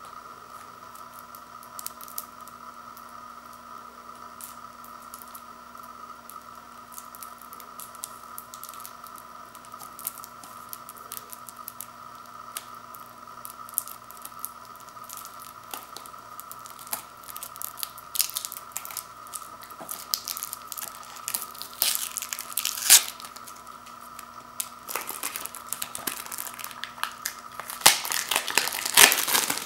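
Plastic shrink wrap on a Blu-ray case being picked at with fingernails, then torn and crinkled off: sparse crackles that grow denser and louder near the end, over a steady faint hum.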